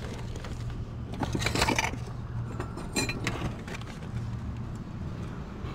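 Rummaging through a dumpster: rustling and clattering of boxes and rubbish being moved, with a few light clinks about three seconds in, over a steady low hum.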